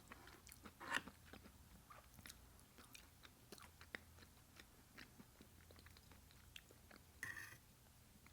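Close-miked chewing and biting of food, with faint mouth clicks and soft crunches; a louder bite about a second in and another near the end.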